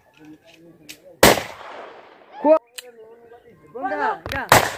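Kalashnikov rifle fired in celebration: one shot about a second in with a long echo after it, then two shots in quick succession near the end, the last the loudest. Short shouts come between the shots.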